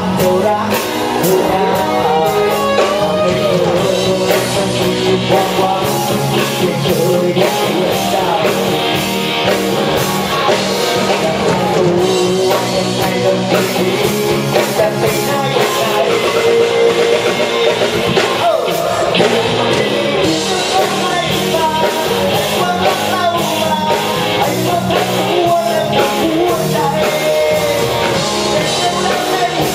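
Live rock band playing at full volume: electric guitars, electric bass and drum kit, with a pitched melody line bending over the top.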